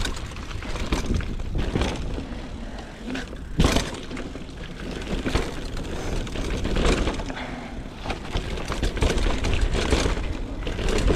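Mountain bike riding down a dirt trail: tyre noise and the bike rattling over bumps, over a steady low rumble, with a sharp knock about three and a half seconds in and smaller knocks after.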